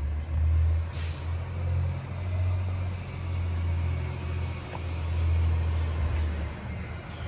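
Diesel engine of an organics garbage truck running as it approaches, a low rumble that swells and fades. A brief hiss comes about a second in.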